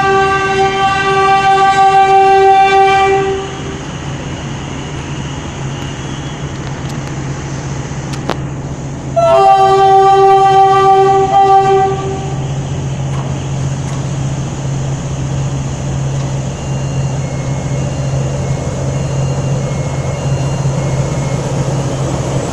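PNR diesel locomotive sounding its horn twice, a long blast at the start and another about nine seconds in, as it arrives. Its diesel engine runs with a steady low hum throughout, getting closer toward the end.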